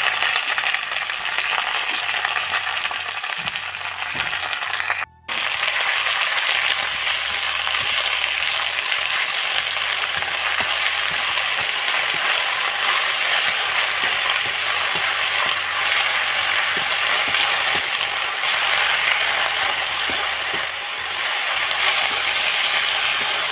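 Radish greens, potatoes and onion sizzling in hot oil in a metal kadai, stirred with a metal ladle that scrapes and clinks against the pan. The sound drops out briefly about five seconds in.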